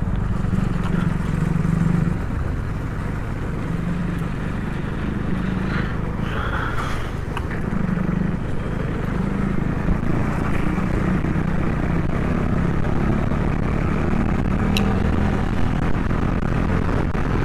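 KTM RC 390 single-cylinder engine running steadily while riding at cruising speed, with wind rushing over the microphone.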